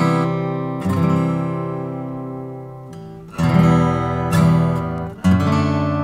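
Epiphone Masterbilt J-45 acoustic guitar, with a solid Sitka spruce top and solid mahogany back and sides, strummed with a pick. About five chords, each left to ring and fade, with a long ring-out in the first half and the loudest strum a little past halfway.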